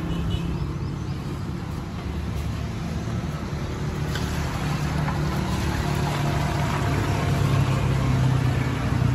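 A steady low engine drone runs throughout, with a light clink about four seconds in.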